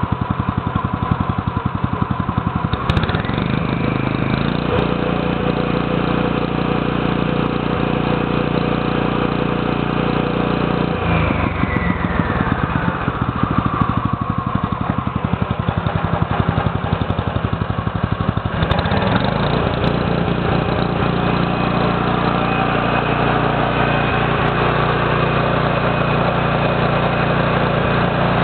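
Single-cylinder Robin petrol engine of a Hayashi HRC12 engine cutter running with the blade off the ground, shifting between a slow, pulsing idle and a faster, smoother speed: it speeds up about three seconds in, drops back to idle about eleven seconds in, and speeds up again near the two-thirds mark. Just after it drops to idle a whine falls steadily in pitch over about two seconds.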